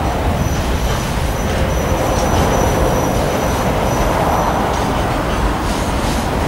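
A train running on the rails: a steady, loud rumble of wheels on track with a faint high-pitched wheel squeal over it.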